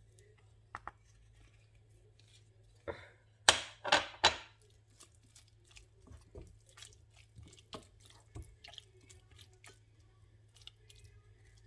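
Kitchen utensil sounds: a spoon knocking and scraping in a bowl of food. There are three louder scrapes close together about three and a half to four and a half seconds in, and light clicks before and after.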